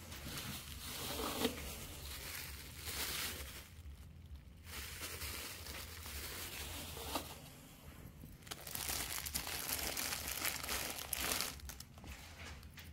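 Packaging crinkling as it is handled, in three long stretches with short pauses between.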